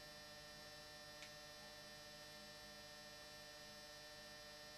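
Near silence: a faint steady electrical hum, with one small click about a second in.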